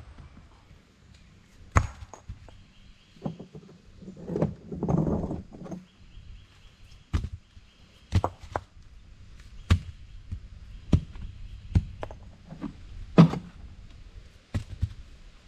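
Recycled bricks and cinder blocks being set down and knocked into place: about a dozen separate sharp knocks and thunks at irregular spacing, with a longer, rougher sound about four to five seconds in.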